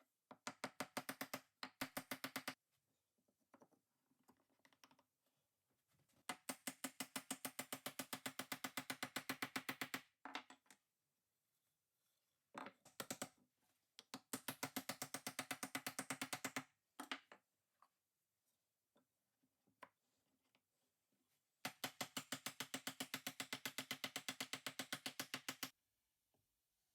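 Rapid, even clicking, about ten clicks a second, in five bursts of one to four seconds with short pauses between them.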